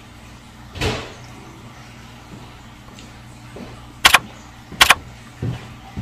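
Sound effects from a subscribe-button animation. A short whoosh comes about a second in, then two sharp mouse-click sounds about three quarters of a second apart near the end, and the clicks are the loudest sounds.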